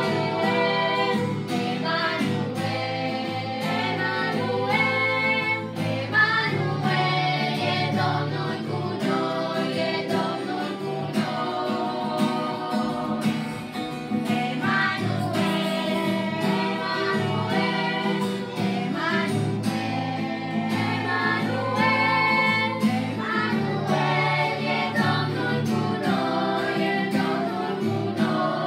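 Live acoustic Christmas song: female voices singing together, accompanied by acoustic guitar, bowed cello and violin.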